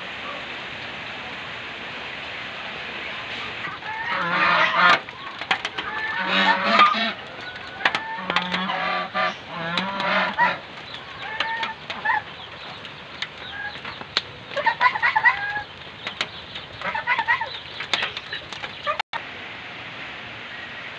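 Backyard poultry calling, chickens clucking in a string of short calls from about four seconds in until near the end, over a steady hiss of rain.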